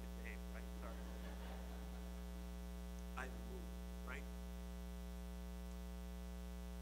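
Steady electrical mains hum, a buzz with many overtones, on the church sound system's feed while the pastor's microphone has dropped out. A faint, distant voice comes through a few times.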